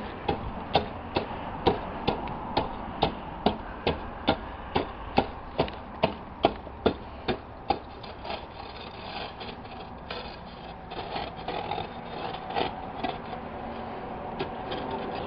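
Steady hammer blows, about two a second, for roughly eight seconds, then a few softer scattered knocks and rubbing.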